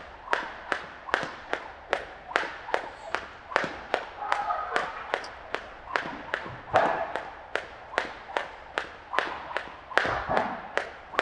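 Jump rope slapping the gym floor in a steady rhythm, about three sharp slaps a second, as a boxer skips through a warm-up round.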